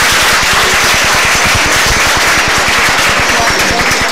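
Audience applauding: a dense clatter of many hands clapping that dies away near the end.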